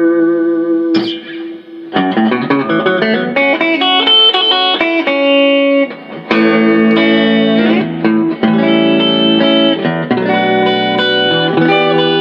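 Electric guitar played clean through an Amazon Basics compressor pedal with its sustain and level turned up: a riff of chords and single notes, even in volume and ringing on, with short breaks about one and a half seconds in and again near the middle.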